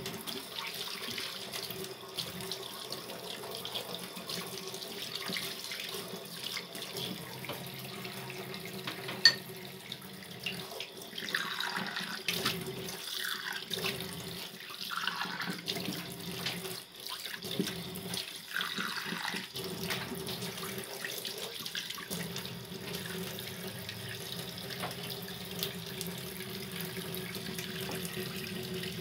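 Water running steadily from a kitchen tap into a stainless steel sink, with a steady low tone under the rush. There is one sharp knock about nine seconds in, and the stream's sound shifts and wavers for several seconds in the middle.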